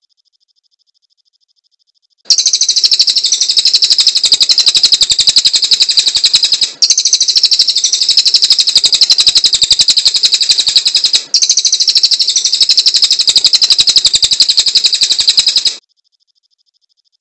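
Cililin bird singing loudly: a very rapid, high-pitched trill delivered in three long runs of about four seconds each, split by two brief gaps. It starts about two seconds in and stops about a second before the end.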